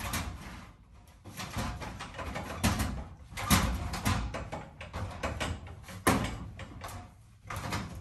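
Irregular rustling, crackling and knocking from insulation being handled and pushed up into the ceiling framing, with a few sharper knocks among the rustle.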